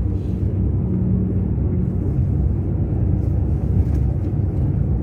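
Steady low rumble of a moving coach's engine and road noise, heard from inside the bus.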